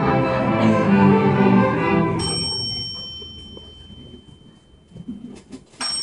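Student string orchestra of violins, cellos and double basses playing; about two seconds in, the bell on the conductor's stand rings, the cue to switch pieces, and the orchestra breaks off while the bell rings on and fades. Near the end the bell rings again and the orchestra comes in with a different piece.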